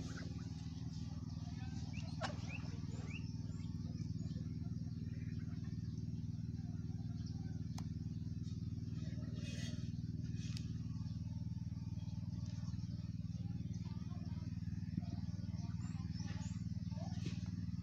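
A steady low hum of a running engine or motor, even in pitch and level throughout, with a few faint short chirps over it.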